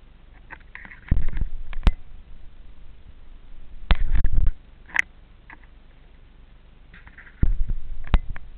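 Handling noise on the camera's own microphone: three bursts of low rumbling and rubbing, each with a few sharp knocks.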